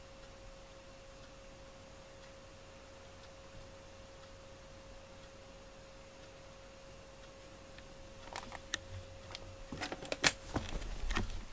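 Quiet room tone with a faint steady hum, then, from about eight seconds in, a cluster of sharp clicks and knocks, loudest near the end, as a cat moves about among objects right up against the camera.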